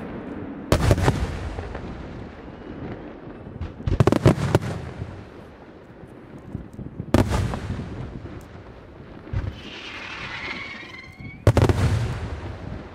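Aerial firework shells bursting: loud booms in four groups a few seconds apart, each rumbling away, with a short hiss shortly before the last boom.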